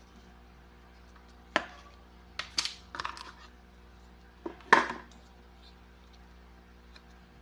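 Phone accessories and packaging being handled and set down on a hard surface: a single knock about a second and a half in, a short clatter of small knocks around three seconds in, and the loudest knock just before five seconds.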